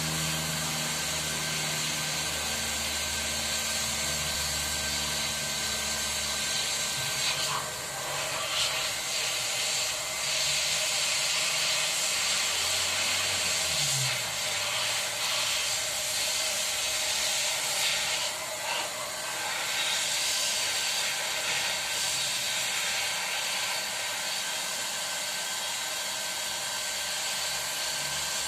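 An electric power tool's motor running steadily with a loud, even whoosh and a few faint steady whines, varying only slightly in level.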